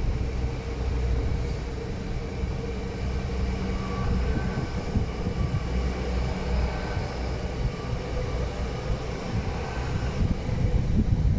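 Long diesel passenger train of two coupled units passing with a steady low engine and wheel rumble and a steady drone underneath. It is likely a bi-mode Intercity Express Train running on its underfloor diesel engines.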